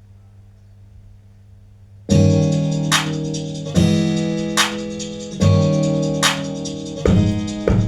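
Instrumental beat playing back. A faint low hum runs for about two seconds, then sustained keyboard chords come in loudly, with a sharp hit about every 0.8 seconds.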